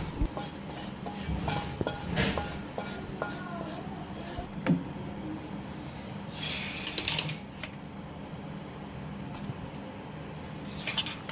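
Pots, lids and utensils clinking and knocking in kitchen handling, with a couple of short hissing bursts, one about six seconds in and one near the end, over a steady low hum.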